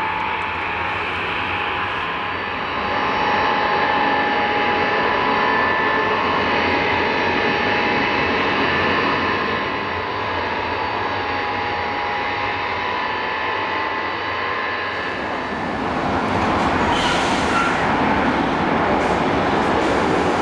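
Tupolev Tu-154M's three Soloviev D-30KU-154 turbofans running at taxi power, a steady jet rush with a high whine. About 15 s in, the whine fades and a broader, even rushing noise takes over.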